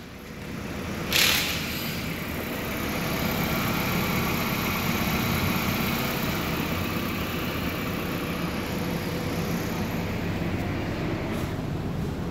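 Hyundai Getz 1.4-litre four-cylinder petrol engine idling steadily under an open bonnet, with a short loud burst of noise about a second in.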